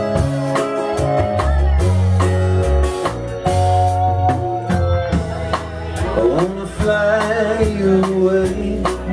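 Live rock band playing an instrumental passage: drum kit keeping a steady beat under bass and guitar, with a lead line that slides up and down in pitch about six seconds in.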